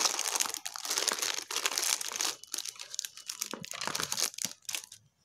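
A clear plastic sleeve crinkling and rustling in irregular handfuls as crochet hooks are pulled and shaken out of it. The crinkling stops abruptly near the end.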